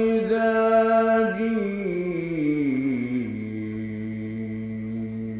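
A man's voice in melodic mujawwad Quran recitation, drawing out one long phrase. It holds a high note with small ornamental turns, steps down in pitch about two to three seconds in, and settles on a lower held note.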